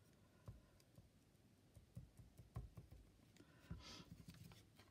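Near silence: quiet room tone with a few faint taps and clicks from handling a glue bottle and paper doily on a cutting mat.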